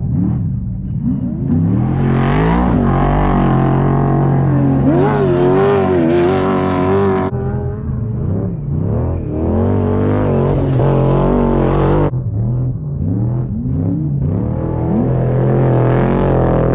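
Off-road race vehicles' engines revving, their pitch rising and falling again and again as they race past.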